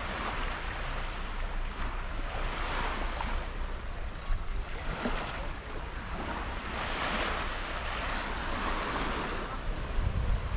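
Sea waves washing in against the shore, the wash swelling every couple of seconds, with wind buffeting the microphone in a low rumble that grows stronger near the end.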